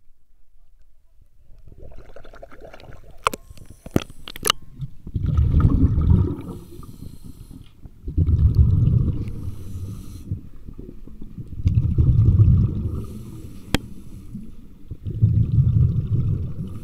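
Muffled water sloshing, heard through an underwater camera's housing: four low surges about three and a half seconds apart, with a few sharp clicks.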